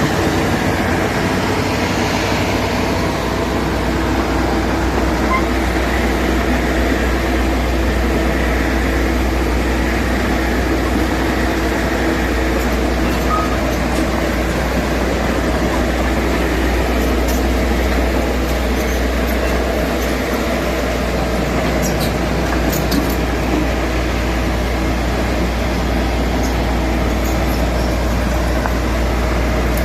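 Excavator's diesel engine running steadily with a deep hum, with a few faint clicks about two-thirds of the way through.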